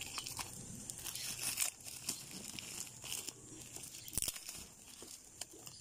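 Thin clear plastic wrap crinkling and tearing as it is handled around a pump bottle's head, with a sharp click about four seconds in.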